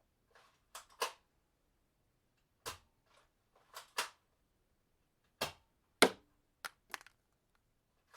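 A series of short, sharp gun sounds: dry clicks and snaps with almost no ring-out, several coming in quick pairs. The loudest is about six seconds in.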